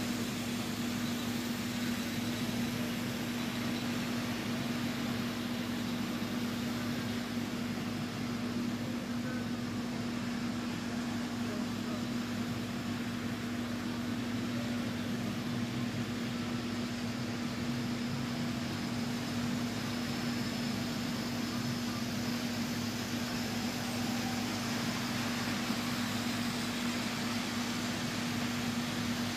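HO scale model train running on the layout: a steady electric motor hum with a constant whir.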